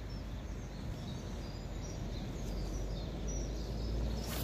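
Wind rumbling on the microphone beside the canal, with small birds calling in short high chirps. A brief sharp noise sounds near the end.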